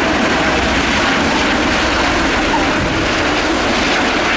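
Formation of Eurocopter EC120 Colibri helicopters flying past, a steady, loud noise of their turboshaft engines and rotors.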